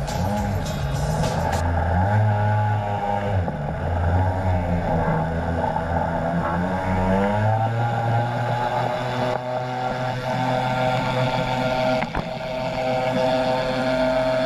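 Ultralight trike's engine and propeller running under power as it slides on skis across snow, the engine note wavering up and down for the first several seconds, then held steady for the takeoff run.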